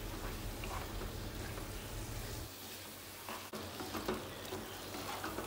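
Bottle gourd and ground tomato masala sizzling gently in a terracotta clay pot on high flame while a wooden spatula stirs it, with a few soft scrapes of the spatula against the pot in the second half.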